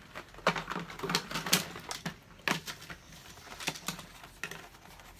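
Puzzle pieces being picked up, shuffled and set down on a hard surface: a run of irregular sharp clicks and taps, thickest in the first few seconds, with a few more later.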